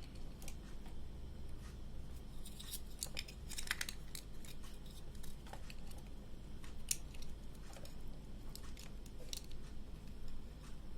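Scattered small clicks, taps and scrapes of hands handling and refitting the parts of a plastic TV-card power adapter, a little busier about three to four seconds in.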